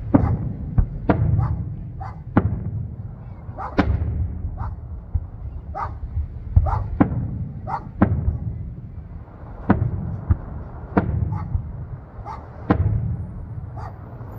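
Aerial firework shells bursting in a string of sharp booms, irregularly spaced at roughly one a second, over a continuous low rumble.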